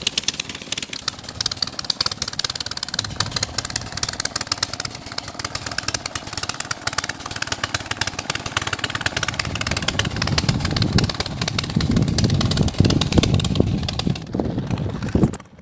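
A small engine running with rapid, even firing. It grows louder and deeper from about two-thirds of the way in, then cuts off suddenly just before the end.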